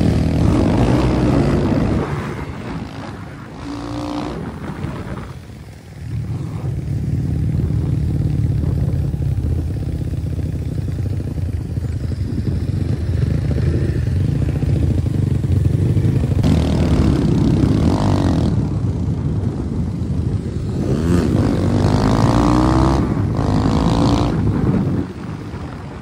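Dirt bike engines running at road speed, the revs rising and falling several times as the riders accelerate and back off. The loudness dips for a few seconds early on and falls off again near the end.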